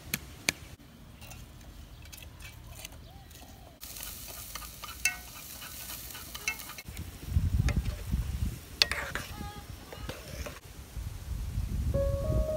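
A run of short cooking sounds: two sharp knife chops on a wooden board at the start, then a hissing stretch as a pot is stirred with chopsticks, with a few knocks and a low rumble in the middle. Piano music comes in near the end.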